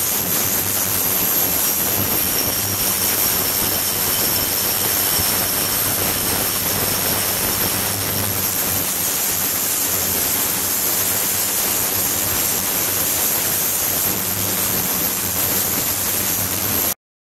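Ultrasonic cleaning tank running, with a glass bottle standing in the water: a steady hiss with a high steady whine over it, the noise of cavitation in the water. It cuts off suddenly near the end.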